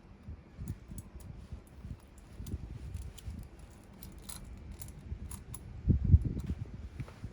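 Irregular knocks and light metallic clinks of tools and engine parts being handled during motorcycle engine disassembly, with a louder cluster of knocks about six seconds in.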